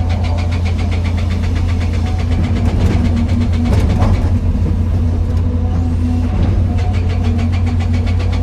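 Excavator's diesel engine running steadily, a strong low drone with a fast, even clatter.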